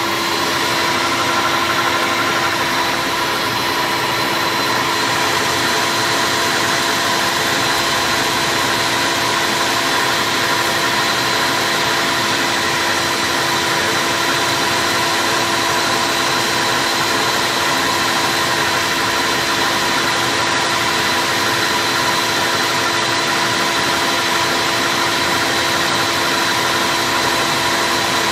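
Stand mixer running steadily at high speed, its whisk beating eggs and sugar into a thick, creamy batter. The motor gives a constant, even hum that does not change pitch.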